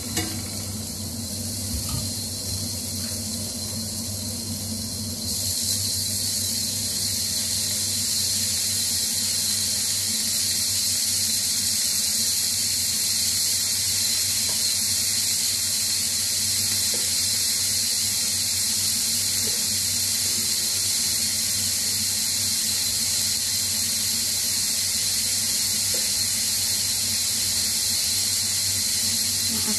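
Broccoli florets sizzling in olive oil in a heavy pan on high heat: a steady hiss that gets louder about five seconds in and then holds.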